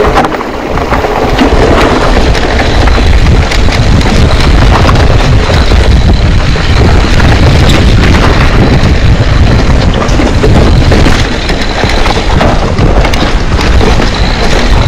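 Mountain bike riding over rough trail: loud wind buffeting on the camera microphone over the rumble of the tyres, with a constant rattle and clatter of knocks from the bike over bumps.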